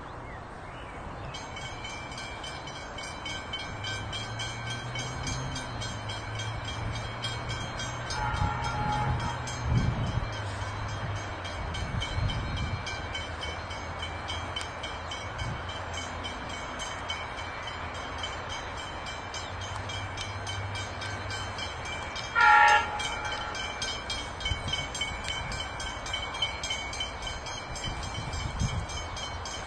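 Diesel freight locomotive approaching, its engine a low steady hum. It gives a faint horn sound about a third of the way in, then a short, loud horn blast about three quarters of the way in, with a steady high ringing in the background.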